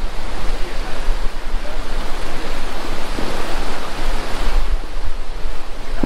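Steady rush of water, like breaking surf or falling water, with wind buffeting the microphone as a low rumble.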